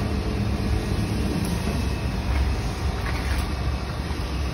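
Steady low rumble of workshop background noise, even throughout, with no distinct machine rhythm.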